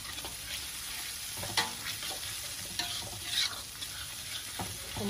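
Chili spice paste frying in oil in a wok, sizzling steadily, while a spatula stirs it and scrapes against the pan in scattered clinks.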